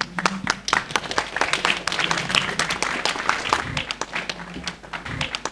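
Audience applauding: many hand claps in a dense, irregular patter.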